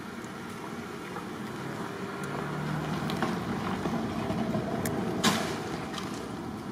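A passing motor vehicle: a low engine rumble that swells over the first five seconds and then fades. A single sharp click sounds about five seconds in.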